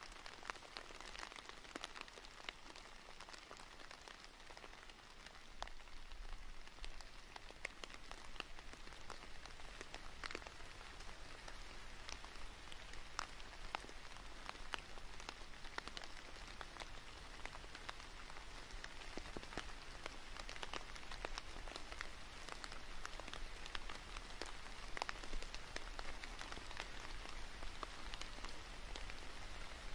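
Steady rain falling, with many separate sharp drop hits over a soft hiss, growing a little heavier in the second half.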